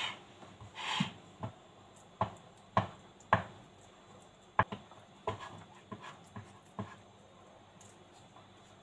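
Wooden spatula tapping and pressing the sides of a slab of carrot halwa into a square on a metal plate: about a dozen light, sharp knocks at uneven intervals, with a short rub about a second in.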